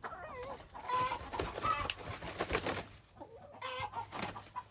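Hens clucking in a series of short, wavering calls, with rustling and knocks from the birds being handled between about one and three seconds in.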